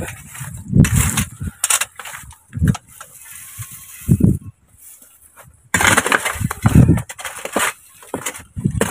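A hoe chopping into dry, stony soil in irregular blows, with clods and stones breaking and scattering. The blows pause briefly about halfway through, then come faster.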